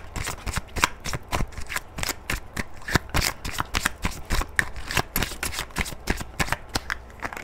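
A deck of oracle cards being shuffled by hand, the cards clicking against each other several times a second. The clicking stops near the end.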